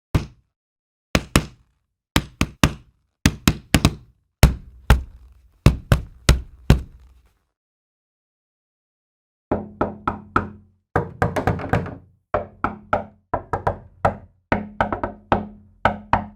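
Knocking sound effects: sharp knocks, singly and in pairs, for about seven seconds, then after a two-second pause, quicker runs of knocks with a low hum under them.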